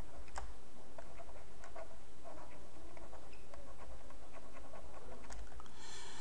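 Stylus writing on a graphics tablet: faint irregular taps and short scratches, over a steady low hum, with a brief hiss near the end.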